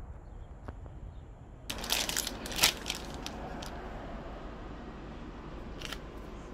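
Thin clear plastic produce bag holding fresh basil crinkling as it is handled: a flurry of crackles lasting about two seconds, then one more short crinkle near the end.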